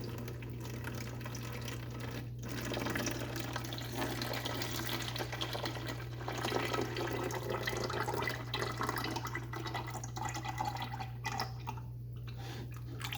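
Engine coolant draining from a 2011 Kawasaki KX250F's cooling system, pouring out in a steady stream and splashing. A steady low hum runs underneath.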